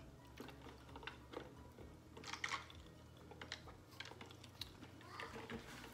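Faint clicking mouth sounds of sipping and swallowing a soda through a straw, with a denser cluster of clicks about two and a half seconds in.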